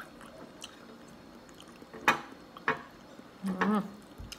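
Two sharp clinks of a metal spoon against a plate, about two seconds in and again half a second later, then a short hummed voice sound and a lighter click near the end.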